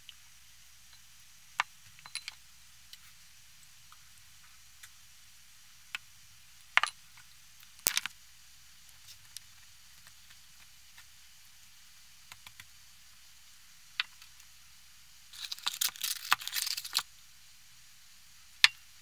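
Scattered sharp clicks and taps of a kitchen utensil against a food tray, with a short burst of crackly rustling about two seconds before the end.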